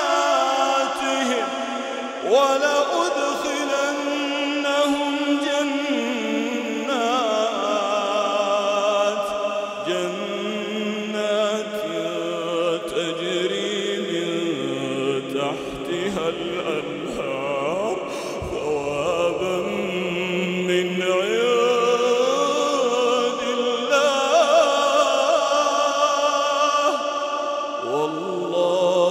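A man reciting the Quran in a slow, melodic tajweed style. He holds long, drawn-out notes with wavering pitch ornaments, with no break in the sound.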